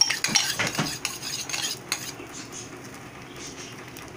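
A metal spoon clinking and scraping as beaten egg is poured and spread over a dosa on a tawa. The clicks come thick in the first two seconds, then it goes quieter.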